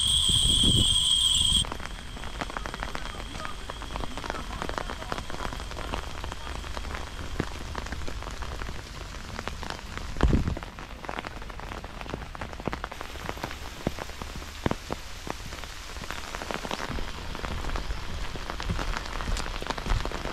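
Steady rain, with many close drop hits on an umbrella overhead. For the first second and a half a steady high ringing tone sounds and cuts off abruptly, and there is one louder low thump about halfway through.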